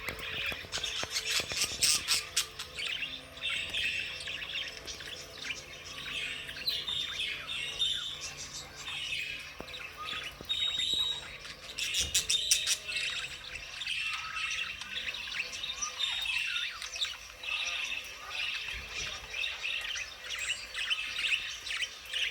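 Several pet budgerigars chattering and chirping continuously, with two short runs of sharp clicks, about two seconds in and again about twelve seconds in.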